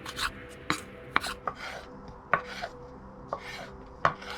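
A kitchen knife chopping tomato flesh into small pieces on a board, with sharp taps at uneven intervals and softer cutting strokes between them.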